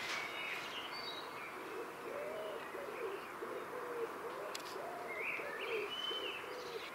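Common wood pigeon cooing: a run of low, soft coos starting about two seconds in and going on to near the end. Small birds chirp higher above it.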